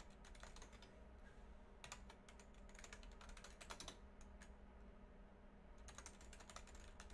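Faint typing on a computer keyboard, in short bursts of quick key clicks with pauses between them, over a low steady room hum.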